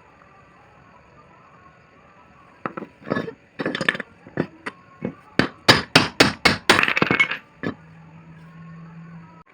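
A run of about a dozen sharp metal taps and knocks from tool work on a motorcycle engine's camshaft assembly, coming quickly in the middle, followed by a short steady low hum.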